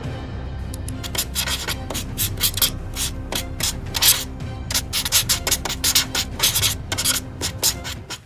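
Pencil strokes scratching across paper: a quick, irregular run of short shading strokes.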